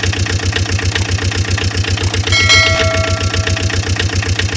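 Idling engine sound effect with a steady, rapid knocking beat. A horn-like tone sounds for about a second and a half near the middle.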